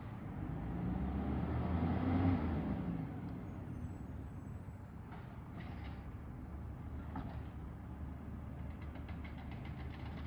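Garbage truck's diesel engine running, louder with a brief rise and fall in pitch about two seconds in, then settling to a steady rumble.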